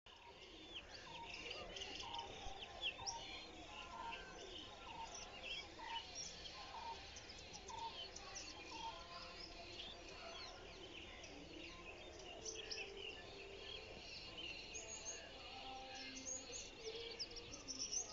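Many small birds chirping and whistling in a dawn chorus, with a lower call repeated at a steady pace through the first half, over a faint steady background noise.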